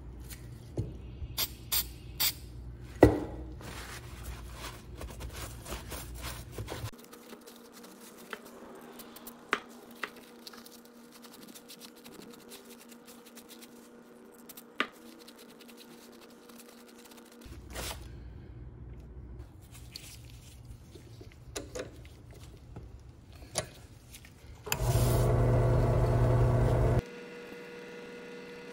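Painted cast-iron ice cream freezer parts being handled on a plastic drop sheet: scattered clicks and light knocks with faint rustling over a low hum. Near the end a loud, steady mechanical sound runs for about two seconds, stops abruptly, and leaves a steady hum.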